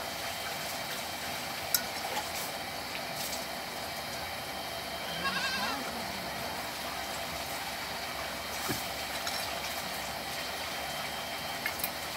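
An animal bleats once, briefly and wavering, about five seconds in, over a steady background hiss. A few light clinks, like a spoon against a steel bowl, come now and then.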